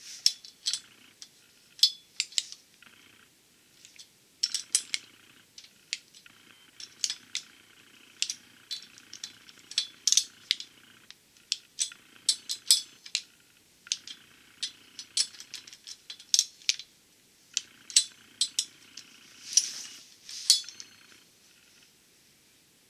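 Torque wrench ratcheting in short bursts of sharp clicks as flex-plate bolts are tightened on the crankshaft hub to 33–35 foot-pounds. The clicking stops in the last second or two.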